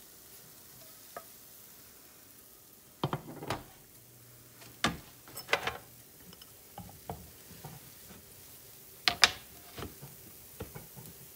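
Silicone spatula scraping and tapping against a ceramic plate while spreading scrambled egg filling on a tortilla: a few sharp clacks and scrapes, scattered, the loudest about three seconds in and again about nine seconds in.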